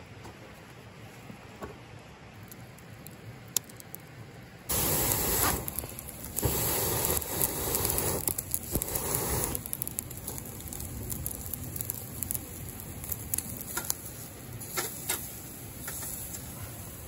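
Beef steak sizzling on a wire grill rack over charcoal, a steady hiss with scattered crackles and pops from the coals. It starts suddenly about five seconds in, after a quieter stretch with a few faint ticks.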